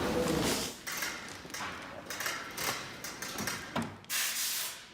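A heavy massage chair scraping and rubbing as it is slid onto furniture moving carts, in uneven bursts, with a louder scrape near the end that stops abruptly.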